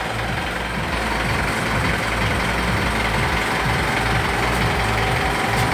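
Mitsubishi Pajero Sport Dakar's four-cylinder turbodiesel engine idling steadily while it runs on Liqui Moly purge cleaner fed from a bottle, during an engine-cleaning purge.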